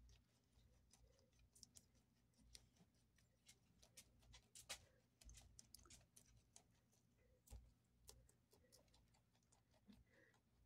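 A rabbit chewing a dandelion flower and stem: faint, quick, irregular clicks, with a few louder crunches near the middle.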